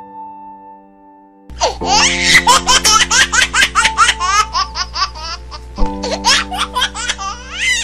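High-pitched laughter in rapid peals, starting about a second and a half in and running on with a short break near six seconds, over a steady background music track.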